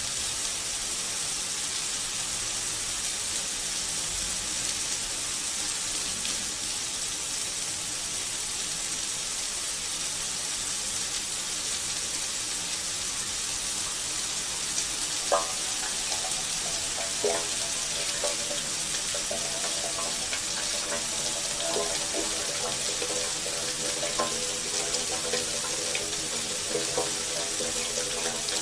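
Bathroom shower running, its water spray hissing steadily. About halfway through there is a single sharp tap, and from then on the spray sounds more uneven, with lower spattering as the water hits something in its path.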